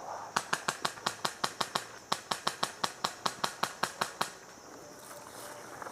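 Airsoft rifle firing a rapid string of semi-automatic shots, about six sharp cracks a second for about four seconds, then stopping.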